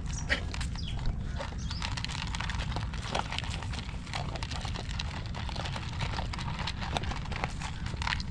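Dogs eating dry kibble from plastic bowls: irregular crunching and clicking of chewing and of muzzles knocking the bowls, over a steady low rumble.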